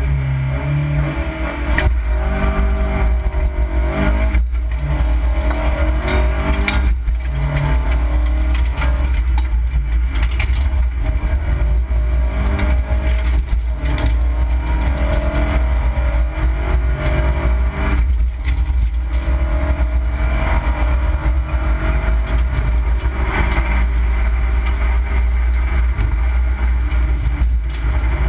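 Opel Corsa B rally car's engine, heard from inside the cabin, revving hard under acceleration, its note climbing and then dropping again many times as it works through the gears, over a heavy low rumble from road and body.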